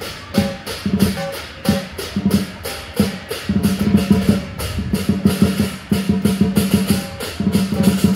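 Background music with a steady percussion beat over a repeating bass line.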